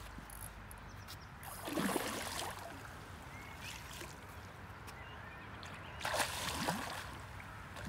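A hooked trout splashing and thrashing at the water's surface as it is landed with a net, in two loud bursts about two seconds in and again about six seconds in.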